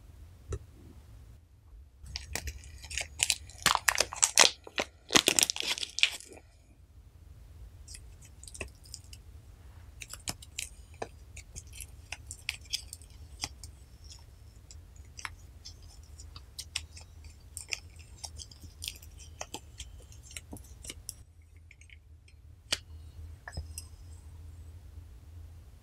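Slime being stretched, squeezed and pressed by hand: a dense run of loud crackling, crunchy pops about two to six seconds in, then sparser, softer clicks and pops.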